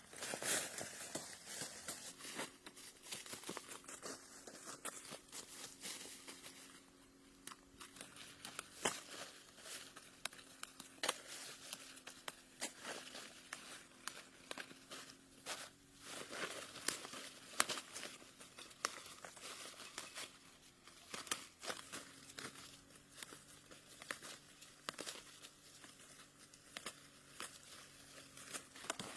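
Close crinkling and rustling, like something being handled, with many small sharp clicks and crackles throughout, over a faint steady hum.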